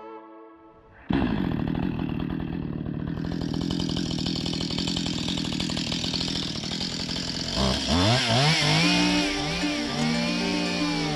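Two-stroke chainsaw starting up suddenly about a second in and running steadily. From about three-quarters of the way through it is revved up and down repeatedly, as when cutting.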